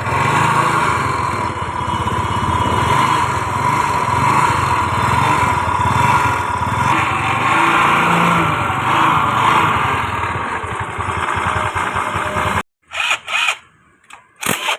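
TVS Wego scooter's single-cylinder engine running steadily, with the clutch rattle that the repair is meant to cure. About three-quarters of the way through it cuts off abruptly, and a series of short scraping strokes follows.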